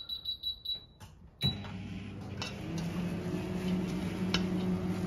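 Microwave oven being set with a quick run of high beeps, then switched on about a second and a half in. It starts with a click and runs with a steady hum.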